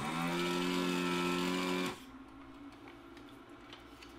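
Desoldering gun's vacuum pump running for about two seconds while its trigger is held, sucking molten solder off a capacitor's through-hole joint on a circuit board. A steady motor hum that rises briefly as it starts and then stops abruptly.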